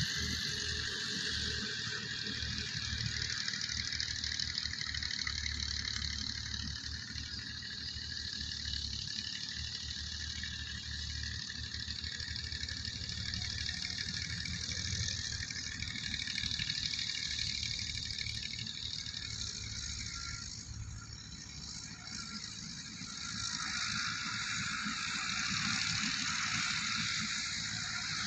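Massey Ferguson tractor diesel engines running steadily as the tractors work the field, a low chugging with a broad hiss over it. It dips briefly about three-quarters of the way through, then comes back up.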